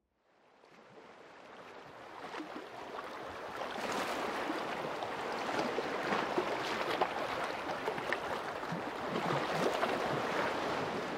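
Ocean surf washing in over shallows. It fades in over the first few seconds and then holds steady.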